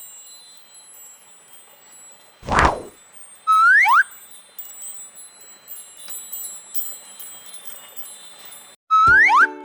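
Wind chimes ringing with high, lingering tones. A sudden whooshing burst comes about two and a half seconds in, and a loud rising whistle-like glide sounds about a second later and again near the end.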